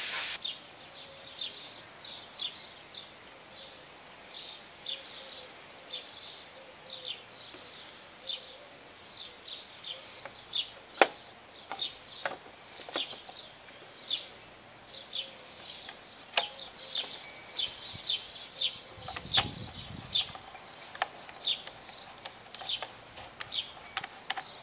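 A small bird chirping over and over, about two short chirps a second, with sharp plastic clicks and knocks here and there as a lawnmower's engine cover and air filter housing are handled and fitted back on. A compressed-air hiss cuts off at the very start.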